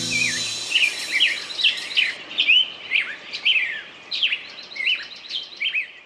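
A chorus of birds chirping and calling, many quick whistled notes sliding up and down and overlapping, while the band's last guitar chord dies away in the first half second.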